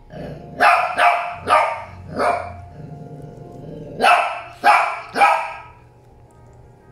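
Shih Tzu barking: four barks in quick succession, a pause of about a second and a half, then three more.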